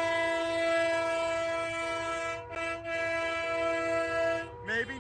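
A long, continuous air-horn blast sounding a chord of several steady tones, dipping briefly twice before cutting off near the end.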